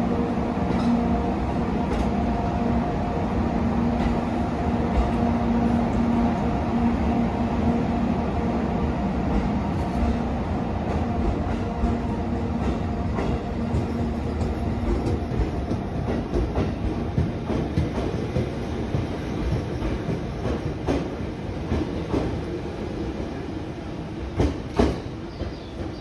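A JR 211 series commuter train set rolling past and pulling away, unpowered and towed by a locomotive: a steady run of wheel and bogie noise with clicks over the rail joints, a hum in the first half, and the sound slowly dropping as the last car recedes. A couple of sharp clacks sound near the end.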